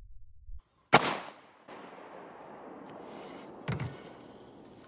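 A single shot from a Glock 9mm pistol about a second in: one sharp crack that dies away quickly. A duller low thump follows about three seconds later.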